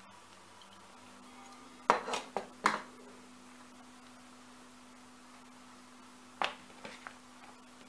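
Sharp metallic clicks from a steel rotary leather hole punch, its jaws snapping shut through the leather and springing open again, about two seconds in. A smaller group of clicks comes near the end, over a faint steady hum.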